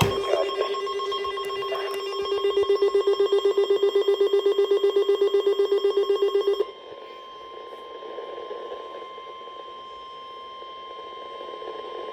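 A weather radio's loud alarm beep, pulsing rapidly at about nine beeps a second, stops abruptly about six and a half seconds in. Under it and then alone runs the quieter, steady, higher-pitched NOAA Weather Radio warning alarm tone, which signals that a severe weather warning is about to be read.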